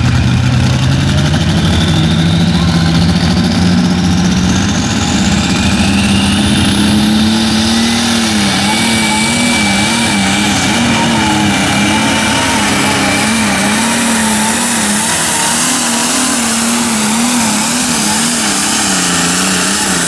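International Harvester light limited super stock pulling tractor's diesel engine under full power, dragging a weight-transfer sled. Its note climbs steadily over the first eight seconds, then wavers rapidly up and down for the rest of the pull, with a high whine climbing in pitch alongside it at first.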